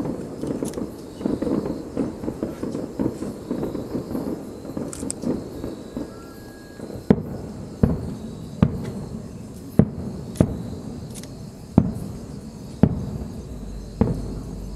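Aerial fireworks shells bursting: a dense, rumbling barrage of overlapping bursts for the first several seconds, then about eight single sharp booms roughly a second apart, each trailing off briefly.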